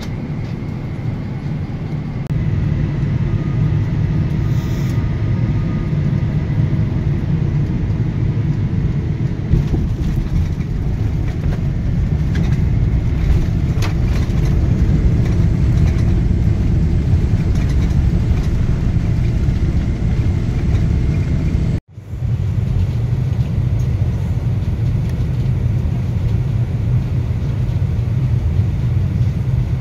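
Steady low rumble of jet airliner engines and airflow, heard from inside the passenger cabin. It stops for a moment about 22 seconds in.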